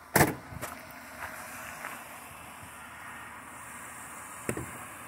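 Ford Taurus engine idling, a steady hum. A loud sharp knock comes just after the start, a smaller one follows, and another sharp click comes about four and a half seconds in.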